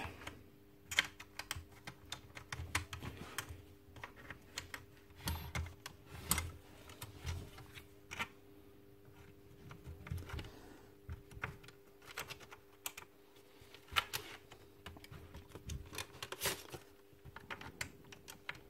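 Irregular small clicks and clacks of the plastic and metal nail magazine of a Makita DBN600 cordless nailer being handled as a strip of nails is loaded, with a few sharper clacks among them. A faint steady hum sits underneath.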